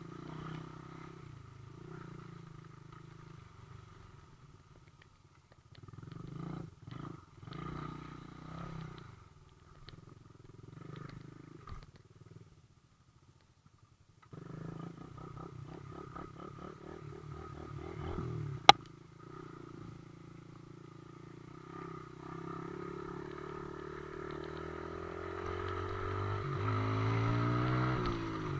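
Off-road vehicle engines running on a trail, rising and falling as they pass, with a short lull near the middle. A single sharp click comes about two-thirds of the way through, and an engine grows louder toward the end.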